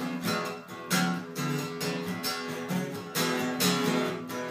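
Two acoustic guitars strumming chords together in a steady rhythm, with no singing.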